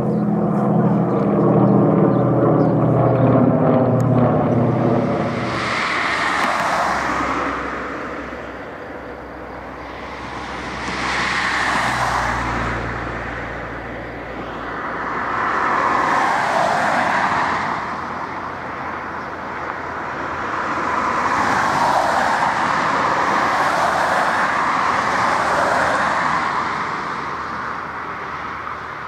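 Lisunov Li-2's twin Shvetsov ASh-62IR radial engines droning as the plane flies over, the pitch sliding down for the first few seconds. The sound then changes to a rougher rumble of the engines at low power through the landing touchdown and roll-out on grass, swelling and fading several times.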